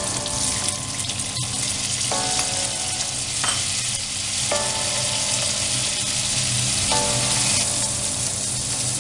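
Tofu, chili and spring onion frying in oil in a pan: a steady sizzle, as chopped tomato is tipped in at the start.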